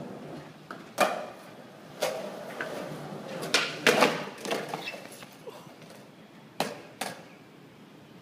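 Skateboard on a hard floor: wheels rolling with a hiss, and a series of sharp clacks and slaps from the board and landings, loudest about a second in and in a cluster around four seconds in.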